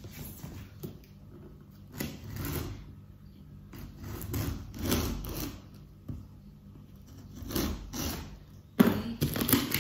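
Packing tape on a cardboard box being slit open along the seam with a small hand-held blade: a series of scraping strokes a second or so apart, with a louder rasp near the end.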